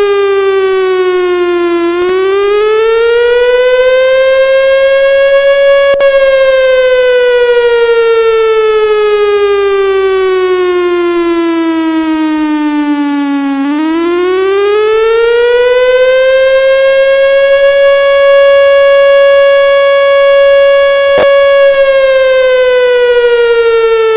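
Federal Signal 2001 warning siren sounding a slow wail. Its pitch rises over about four seconds and then falls slowly for about eight. It winds back up, holds at the top for several seconds, then starts to fall again.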